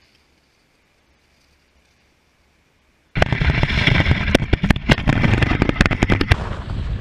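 Near silence for about three seconds, then a sudden loud rush of wind and snow noise on a camera mounted on a ski at speed, with many sharp clicks and knocks. About a second before the end the clicks die away and a steadier rush carries on.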